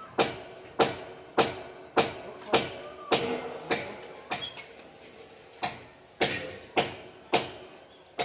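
Steady hammering, a little under two blows a second, each with a short ring. The blows pause briefly about halfway through and again near the end.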